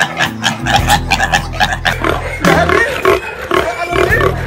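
Domestic pigs grunting and squealing in quick, repeated short calls.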